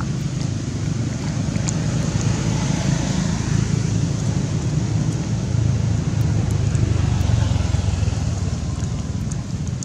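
Wind buffeting the microphone: a steady low rumble that swells a little in the middle.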